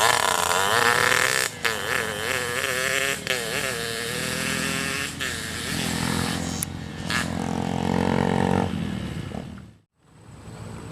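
Yamaha F1ZR two-stroke engine being revved in blips, its pitch swinging up and down, then held steady at higher revs for a couple of seconds before falling away just ahead of a brief silence near the end.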